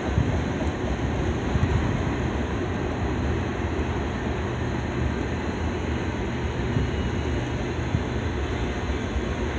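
Double-stack intermodal container well cars rolling past, giving a steady, even wheel-on-rail noise.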